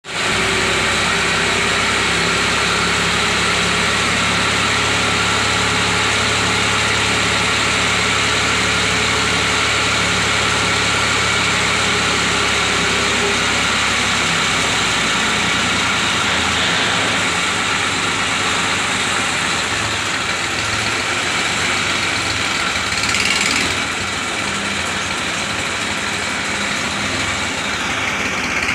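TAFE 45 DI tractor's diesel engine running steadily while the hitched hydraulic trailer tips its load of soil. About halfway through, its steady low hum breaks into an uneven beat, and there is a brief louder surge near the end.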